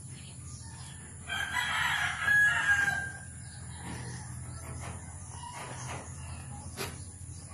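A rooster crows once, a call of about two seconds starting a little over a second in, over a low steady background hum.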